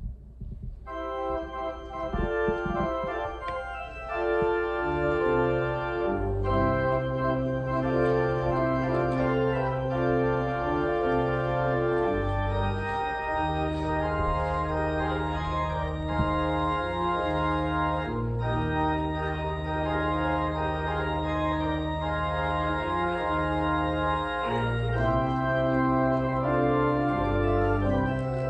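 Church organ playing slow sustained chords after the dismissal, most likely the postlude. It starts about a second in, and held bass pedal notes join a few seconds later.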